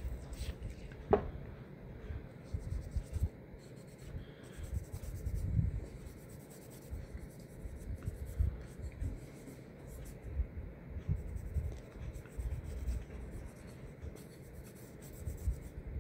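A cloth patch scrubbing and rubbing inside a pistol slide, with irregular rustling and handling bumps as the old oil is wiped out. One sharp click sounds about a second in.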